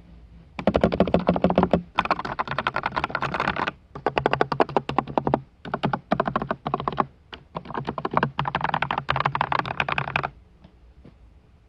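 Fast typing on a custom MonsGeek MG108W mechanical keyboard with lubed Kang White V3 linear switches, lubed stabilisers, foam dampening and XDA keycaps. The keystrokes come in about five quick runs separated by short pauses, and stop about ten seconds in.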